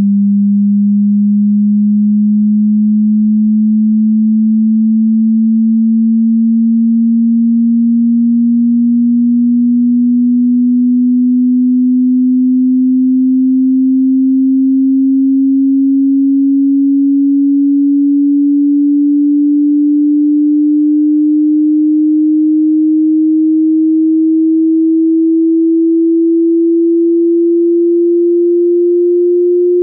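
Hearing-test sine tone: a single pure, low tone that rises slowly and steadily in pitch as part of a frequency sweep.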